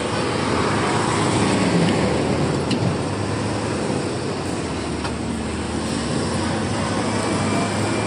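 Tanker trucks driving past on a road: a steady mix of truck engine and tyre noise.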